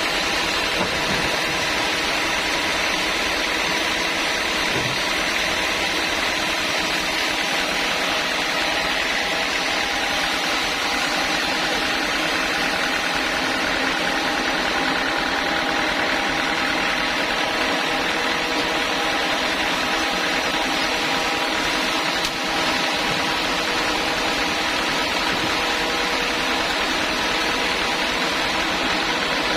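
Sawmill machinery running steadily: a continuous mechanical hum with several steady tones over a noisy hiss, unchanging throughout.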